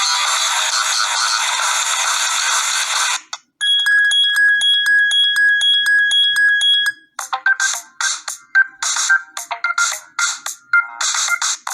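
Preset ringtones of a BQ-5702 Spring smartphone playing one after another, with no bass. A dense electronic tune stops about three seconds in. A steady, evenly pulsing electronic tone follows for about three seconds, then a choppy, rhythmic electronic tune starts.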